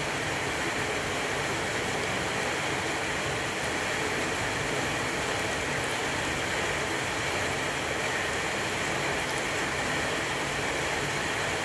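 Steady sizzle of hot oil deep-frying a wok full of flour-dusted potato perkedel patties.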